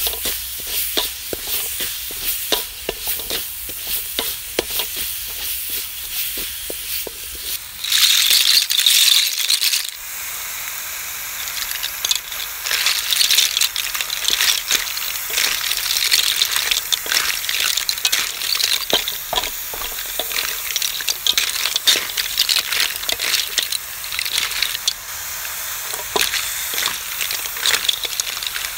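A wooden spatula scrapes and taps a metal wok as spice paste fries. About eight seconds in there is a loud burst of sizzling as the snails go into the hot wok. After that, steady frying with the clatter of snail shells being stirred against the wok.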